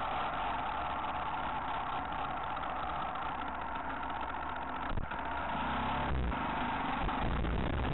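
Off-road motorcycle engine running steadily as the bike rides a wooded trail, heard through an on-board camera microphone. A sharp knock comes about five seconds in, followed by heavier low rumble.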